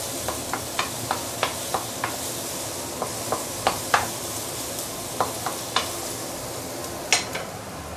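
Chopped garlic, ginger and onion sizzling in oil in a stainless steel wok, while a wooden spatula stirs and taps irregularly against the pan. A last, louder knock comes about seven seconds in, then only the sizzle goes on.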